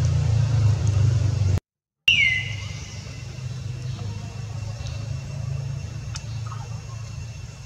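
Steady low rumble of background noise, like distant traffic, broken by a short dropout to silence about one and a half seconds in. A sharp click and a brief falling tone follow, then quieter steady noise.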